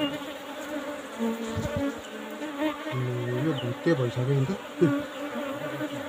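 Asian honeybees (Apis cerana indica) from a disturbed wall colony buzzing close around the microphone, the buzz swelling and dipping in pitch as bees fly past, louder from about halfway through.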